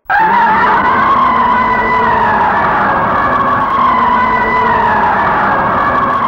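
Giant-monster (kaiju) roar sound effect: a loud, high, held cry that starts abruptly and carries on, its pitch sliding slowly down.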